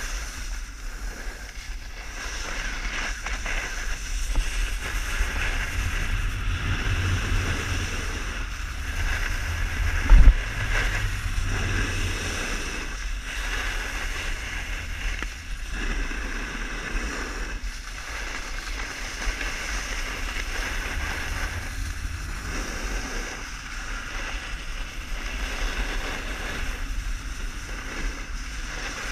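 Wind rushing over the camera's microphone and the hiss and scrape of sliding over packed snow at speed, swelling and easing with each turn. A single sharp thump about ten seconds in.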